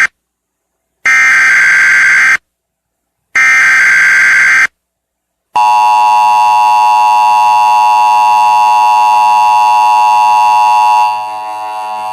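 Emergency Alert System broadcast start: two bursts of buzzing digital data tones from the SAME header, each about a second long, then the steady two-tone EAS attention signal beginning about five and a half seconds in. The attention tone drops in level about a second before the end.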